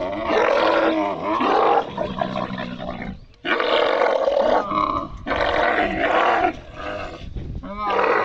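Dromedary camel bellowing loudly in several long, gurgling calls with short breaks between them, as it resists being hauled up into a truck.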